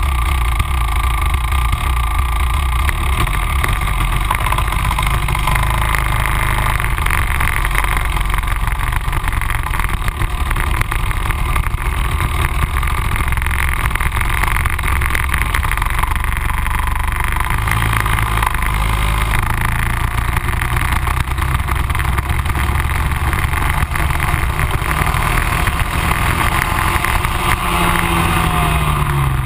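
Rotax Max 125 single-cylinder two-stroke kart engine running, heard from on board the kart as it pulls out and drives on the track. Near the end the engine note falls as the revs drop.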